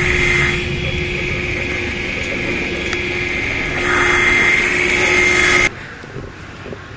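Engine running under load as a cable pulls a tree stump out of the ground, with a steady high whine over the motor that grows louder about four seconds in. It cuts off abruptly near the end to a much quieter, steady engine sound.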